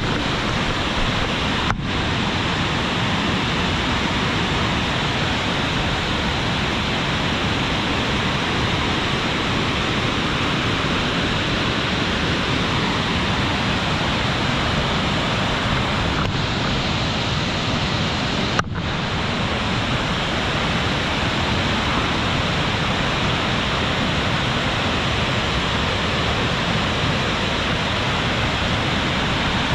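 Steady, even rush of a waterfall, with two brief breaks, about 2 seconds in and about 19 seconds in.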